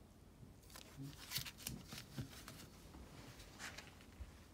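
Faint rustling and crinkling of plastic card sleeves and holders as trading cards are handled, in a few short bursts.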